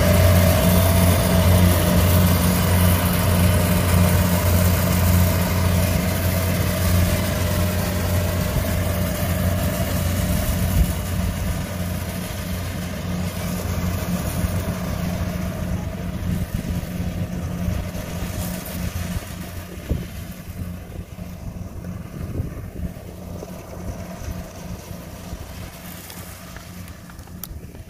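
Rice combine harvester running as it cuts, a steady low engine drone that fades gradually as the machine moves away.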